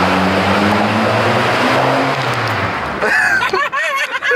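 Small Honda four-cylinder with its muffler removed (straight-piped), heard from inside the cabin, revving hard under full acceleration with a loud, raspy exhaust. About three seconds in the throttle lifts and the engine note drops away, and excited shouting follows.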